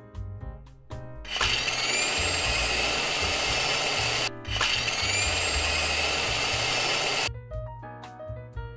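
Electric blender running: the motor spins up with a rising whine, cuts out briefly about three seconds later, then spins up again with the same rising whine and runs for about three more seconds before stopping. Light piano music plays before and after it.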